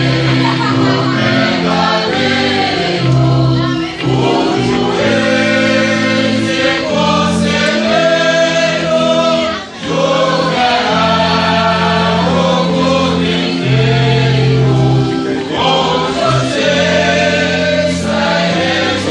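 A hymn sung by many voices together in slow, held chords, with a short break between phrases about ten seconds in.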